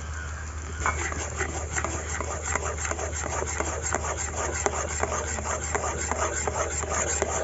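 Metal spatula scraping and stirring mango pulp with milk in a metal wok (kadai), in quick repeated strokes that start about a second in. The stirring is done at once so the milk does not curdle.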